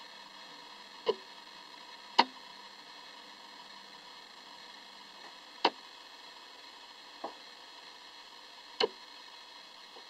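Five sharp, isolated clicks at irregular intervals, the loudest about two seconds in, over a steady low hiss.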